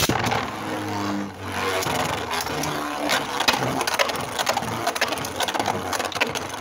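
Two Beyblade Burst tops, Dread Bahamut and Fafnir, spinning against each other in a plastic stadium. A steady grinding whir of their tips on the floor starts suddenly as the second top lands, with many sharp clicks as the tops strike each other.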